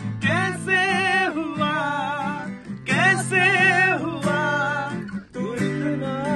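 A man singing in long held phrases with vibrato, accompanied by a strummed acoustic guitar.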